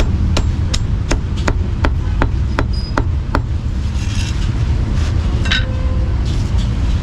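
Meat cleaver chopping roast meat on a wooden chopping block: about nine quick, evenly spaced chops, roughly three a second, stopping about halfway through, then a few softer scrapes and rustles as the pieces are gathered. A steady low rumble of motorbike traffic runs underneath.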